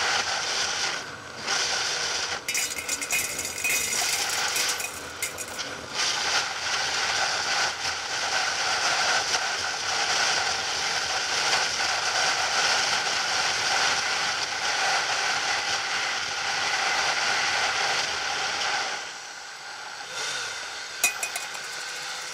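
Motorcycle engine running at road speed, with wind rushing over a helmet-mounted camera. Near the end the engine quietens as the bike slows, and there is a sharp click.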